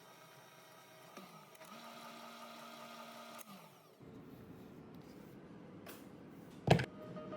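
A small electric motor spins up about a second in, runs at a steady pitch for about two seconds, then winds down and stops. A sharp knock follows near the end.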